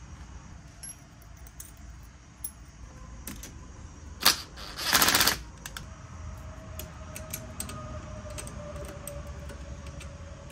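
Small metal clicks of tools and parts as rocker arms are fitted on a Tillotson 212 cylinder head, with one sharp click about four seconds in followed by a loud, rapid rattle lasting about half a second.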